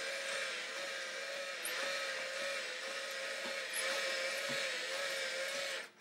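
Small electric motor and plastic gearbox of a Thinkway Toys AT-AT U-Command remote-control walker whirring as it walks, the whine wavering in a cycle that repeats about once a second. It cuts off abruptly just before the end.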